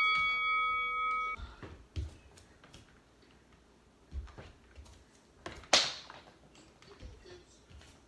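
A beep rings out and fades about a second and a half in. Then come irregular soft thuds and a few sharper knocks of bare feet stepping up onto and down from a wooden kitchen chair and the floor mat during alternating step-ups.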